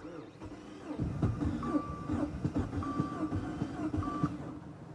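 A 2015 Dodge Dart's starter cranking the engine over with a steady whir and uneven pulses, but the engine never catches: a crank-no-start. A short high warning chime beeps on and off over it.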